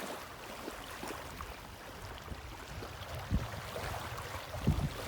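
Outdoor ambience: a steady faint hiss with low wind rumbles on the microphone, gusting about three and a half seconds in and again near the end.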